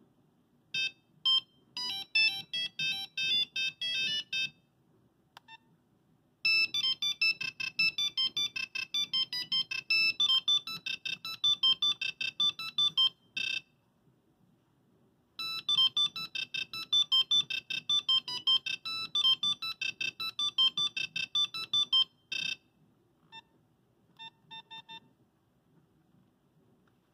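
Nokia 5110 playing monophonic ringtones through its small speaker: quick high-pitched beeping melodies. A short tune comes first, then a longer tune plays twice with a pause between, and a few short beeps follow near the end.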